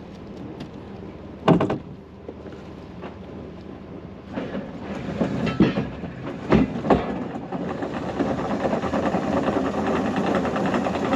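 Catamaran's anchor chain running out over the bow as the anchor is dropped: a rattling clatter that starts about four seconds in and grows louder, with a few heavier clanks along the way. There is a single sharp knock about a second and a half in.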